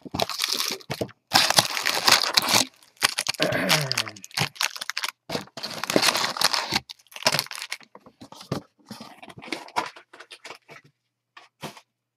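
Foil trading-card pack wrappers crinkling and rustling as a handful of packs is gathered and lifted out of a cardboard box. The crinkling is dense for the first several seconds, then thins to a few scattered light clicks and rustles.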